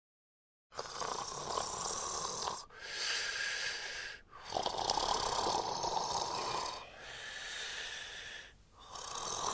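A person snoring in bed: a series of long, rasping breaths, each a second or two, with short pauses between them.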